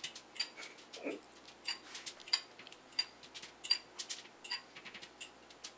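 Light metal clinks and taps of a small utensil against the foil-lined baking tray and butter bowl as melted butter is spread over fish fillets, irregular at about two to three a second.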